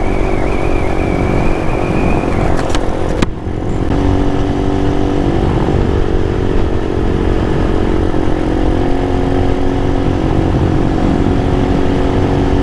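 Small single-cylinder mini motorcycle engine running at a steady cruising speed while riding, with a heavy rumble of wind on the microphone. A few sharp clicks and a brief dip in level come about three seconds in.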